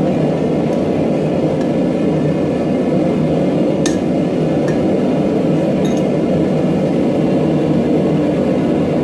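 Steady roar of a forge heating the work, with a few faint metallic clinks.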